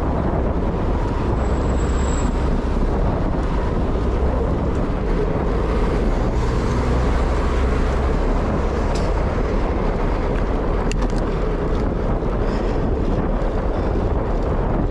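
Steady wind rush and low rumble on the microphone of a camera riding along on a bicycle, with no distinct events.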